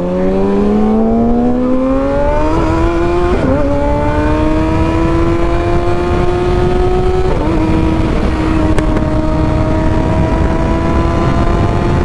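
Kawasaki ZX6R inline-four sport bike with an aftermarket M4 exhaust accelerating hard through the gears: the engine note climbs steadily, dips briefly at upshifts about two and a half, three and a half and seven and a half seconds in, then holds high and climbs slowly.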